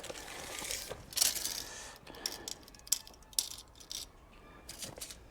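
Irregular clicks, clinks and short rattles of metal parts and tools being handled, with a couple of brief scraping rustles about a second in.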